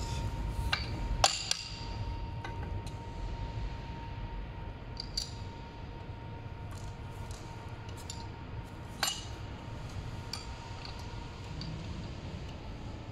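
Metal hand tools clinking against the scooter's folding mechanism: a T-handle hex key and a small steel sleeve being fitted, giving a few sharp clinks, loudest about a second in and again about nine seconds in.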